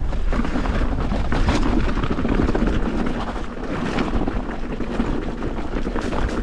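Wind buffeting the microphone over the tyre noise of an Evil Insurgent mountain bike rolling fast over loose dirt, with a few sharp clicks and knocks from the bike over bumps.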